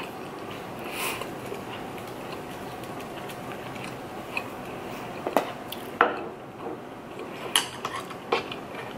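A plastic furikake shaker being shaken and handled over a plate of rice, with a few sharp clicks and taps against the tray in the second half.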